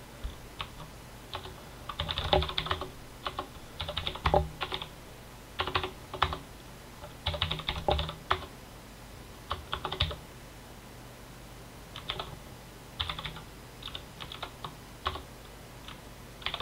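Typing on a computer keyboard: quick runs of keystrokes in short bursts with brief pauses between them, as shell commands are entered.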